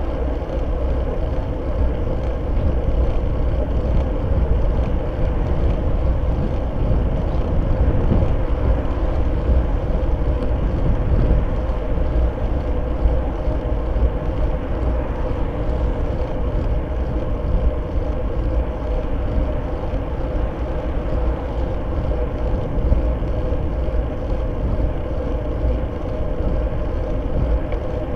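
Steady wind rush and road rumble of a road bike riding at speed, picked up by the bike's seatpost-mounted Fly6 rear camera, with a constant deep rumble and a steady hum.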